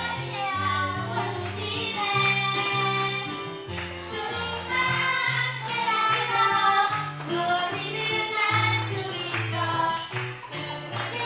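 Christian praise song playing: voices singing the melody over a bass line that steps from note to note.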